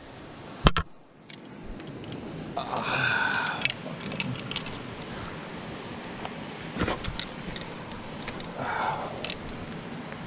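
Scrambling and handling noise as someone climbs down rocks holding a rope and a fly rod: rustling clothing and gear, scuffs and small knocks over a steady noisy background. One sharp knock under a second in is the loudest sound.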